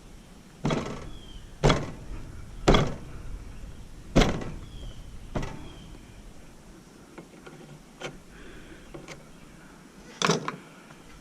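A string of irregular knocks and clanks from parts being handled and pulled apart while dismantling scrapped electronic equipment. There are about five sharp knocks in the first half, then fainter taps, and a last loud double knock near the end.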